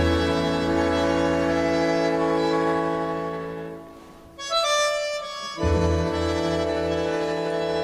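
Instrumental film music: sustained orchestral chords that fade about four seconds in, give way to a brief higher phrase, and then return.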